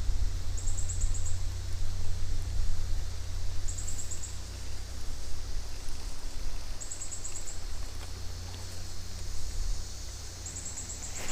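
Creek-side outdoor ambience: a very high, rapid pulsed chirp lasting about half a second recurs about every three seconds, four times, over a steady low rumble.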